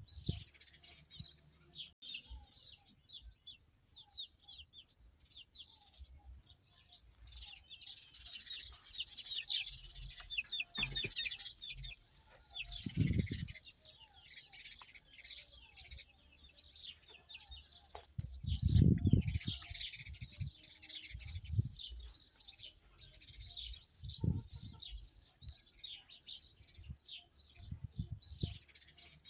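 Many small birds chirping and twittering in a dense chorus, busiest about a third and two-thirds of the way through. A few brief low rumbles break in, the loudest about two-thirds through.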